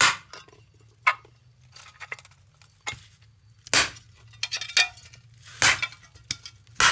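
Sharp metallic clinks and knocks, about seven in a few seconds at uneven intervals, from handling and striking the metal parts of a blown loudspeaker driver's magnet assembly.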